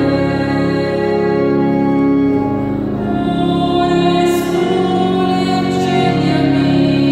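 Slow, gentle hymn music with long held notes: a sung melody over sustained instrumental accompaniment.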